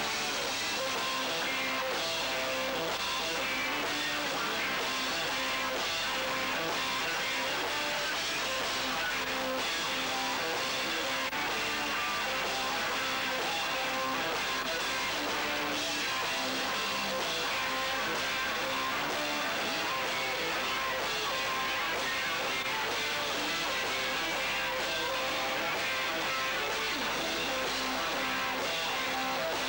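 A band playing live, led by two electric guitars, one of them a semi-hollow-body.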